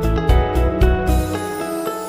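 Background music with pitched melody notes over a steady beat; the beat drops out about halfway through, leaving held notes.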